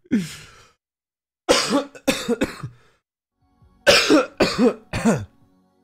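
A man's fit of laughter mixed with coughing, in three bouts of short breathy bursts with pauses between; it strains his diaphragm.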